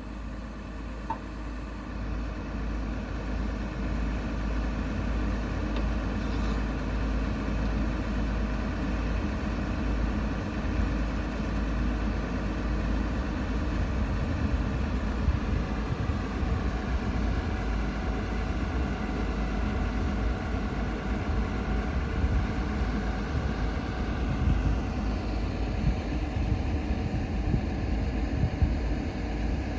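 Excavator's diesel engine running steadily, growing louder over the first few seconds.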